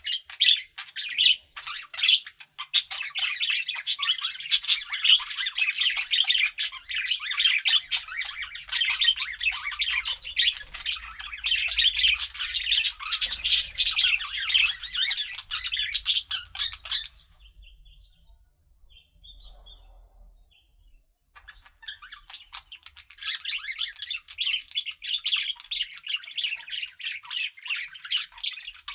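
Budgerigars chattering: a busy, continuous warble of quick chirps and squawks. It dies down to a few scattered chirps for about five seconds past the middle, then picks up again.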